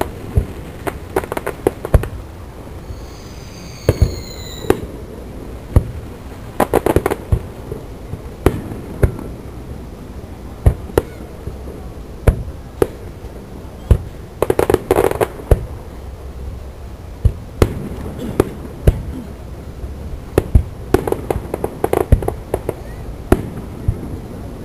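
Aerial fireworks display: shells bursting in a series of sharp bangs, with dense clusters of rapid crackling about seven, fifteen and twenty-one seconds in. A short whistling tone sounds about three seconds in.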